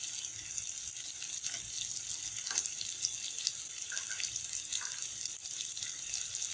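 Onion, tomato and spice masala sizzling in oil in a karahi: a steady high hiss with a few faint pops.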